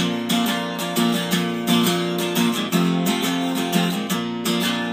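Acoustic guitar strummed steadily, playing chords with no voice.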